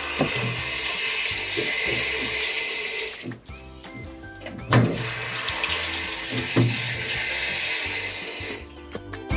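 Water running from a tap while hands are washed, in two stretches of about three and four seconds with a short break between.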